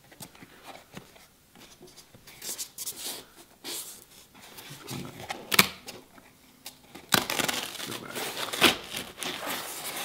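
Cardboard box being opened by hand: scattered rustling and scraping of the flaps and tape being peeled, with a sharp snap about halfway through and a longer, denser stretch of tearing and scraping over the last few seconds.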